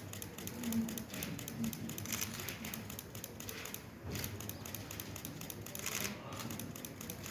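Giant pandas chewing bamboo: a dense run of crisp cracks and crunches as the stalks are bitten and split.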